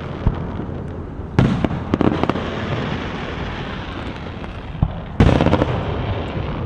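Fireworks going off: a series of sharp bangs, the loudest about five seconds in, over a constant din of many more fireworks.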